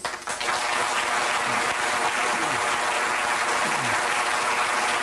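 Audience applause that breaks out just after the start and continues steadily.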